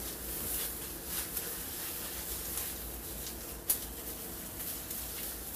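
Gloved hands rubbing texturizer cream through wet hair: soft, repeated rustling, with one sharp click about three and a half seconds in.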